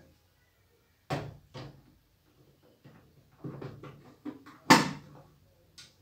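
Plastic detergent dispenser drawer of a Synix 7 kg front-loading washing machine being handled, pulled out and pushed back in: a series of knocks and clicks, with the loudest slam near the end.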